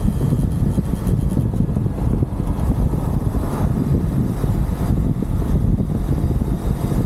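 UM Renegade Commando 125 motorcycle running at riding speed: a steady low engine rumble mixed with wind buffeting the handlebar-mounted microphone.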